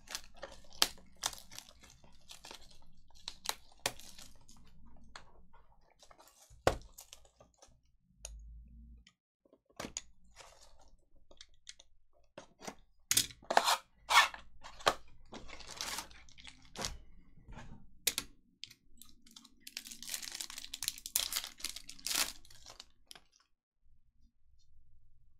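Hockey trading card box and foil packs being opened and the cards handled: many sharp clicks and snaps of cardboard, with bursts of wrapper crinkling and tearing about halfway through and again near the end.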